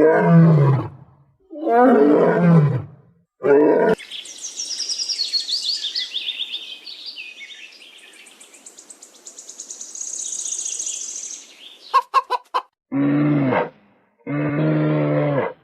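A run of farm animal calls cut together. It opens with three short, loud low calls falling in pitch. Then about seven seconds of high, rapid bird chirping. Then a few sharp clicks and two steady, low pitched calls of about a second each.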